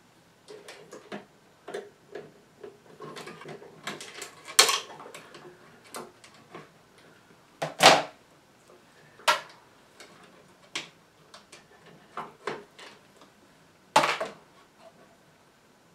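Irregular clicks, taps and scrapes of a 1924 Chelsea Model 122 regenerative radio being taken apart by hand, its wiring and small metal parts handled and pulled off the chassis. A few louder knocks stand out among them.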